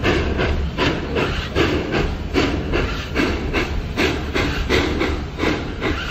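Steam locomotive chuffing in an even rhythm, about two to three exhaust beats a second, over a steady low rumble of the train.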